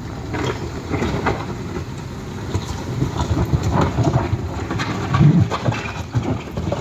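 Heavy machinery or a heavy vehicle rumbling, with irregular metallic clanks and knocks over the running engine.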